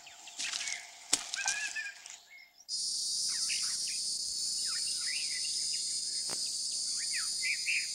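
Woodland nature sound: scattered bird chirps and a couple of faint clicks, then about three seconds in a steady high-pitched insect chorus starts suddenly, with bird calls chirping over it.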